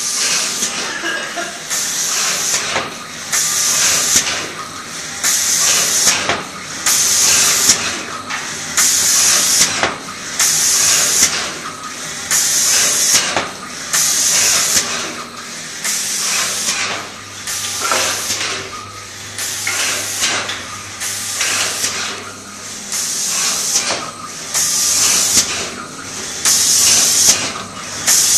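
Two pneumatic spray guns on an automatic flatbed spray finishing machine hissing in repeated bursts, about one a second, as the gun head sweeps back and forth spraying lacquer coat over MDF cabinet doors.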